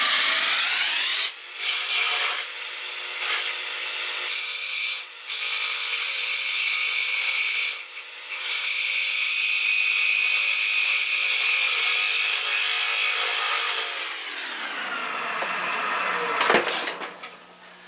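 A gouge cuts the inside of a spinning yellow birch bowl on a wood lathe, making a steady hissing scrape. The scrape breaks off briefly a few times as the tool is lifted. Near the end the cutting stops and the lathe's hum drops in pitch as it slows.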